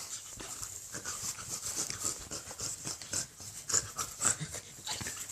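Quick, irregular breathy huffs and scuffling, two or three a second, from a playing blue-and-yellow macaw.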